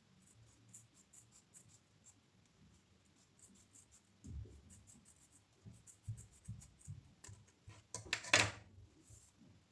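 Small workbench handling noises: scattered light clicks and a few soft knocks, then a short scraping rub, the loudest sound, about eight seconds in.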